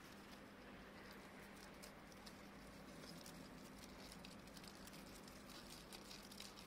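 Near silence: faint scattered rustling ticks, growing denser in the second half, over a low steady hum.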